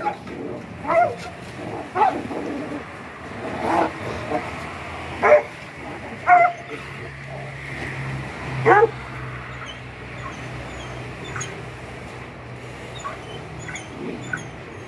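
Several dogs barking and yelping in a scuffle, six or seven sharp loud calls in the first nine seconds, the loudest about five, six and nine seconds in. After that only occasional faint yips are heard over a low steady hum.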